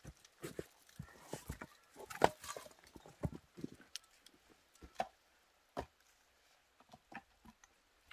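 Nail clippers snipping nails: a run of irregular sharp clicks, the loudest cluster about two seconds in.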